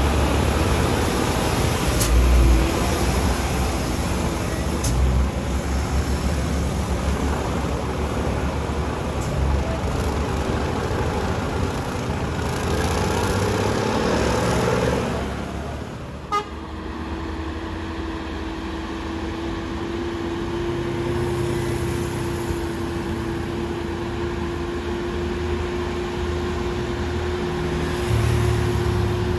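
Heavy traffic labouring up a steep mountain hairpin: a bus's and trucks' engines running under load, with a horn sounding. Partway through the sound changes to a steadier heavy-truck engine drone carrying a constant hum.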